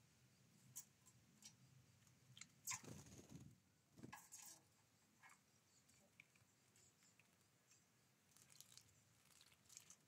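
Faint pecking taps and crunches of great tits working at sunflower seeds on a wooden feeder tray, with two brief louder scuffling bursts about three and four seconds in.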